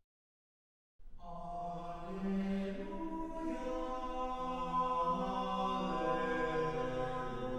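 A cappella jazz choir singing slow, held chords in several voice parts. The singing comes in after about a second of silence.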